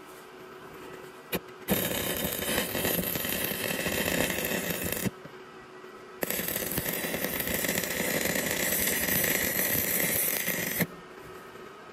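Stick (MMA) welding arc crackling and hissing as steel angle is welded onto the rods of a grounding loop. There are two runs, about three seconds and then about four and a half seconds, with a pause of about a second between them. A short tick comes just before the first run.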